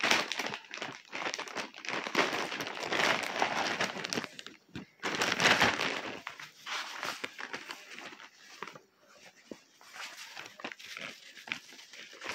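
Packaging crinkling and rustling in irregular bursts as it is handled and unwrapped, heaviest in the first few seconds and again about five seconds in, then trailing off into sparse crackles.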